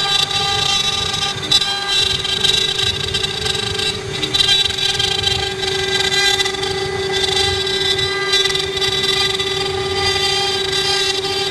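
Four-head CNC wood carving router running, its spindles giving a steady high-pitched whine over a rough cutting rumble.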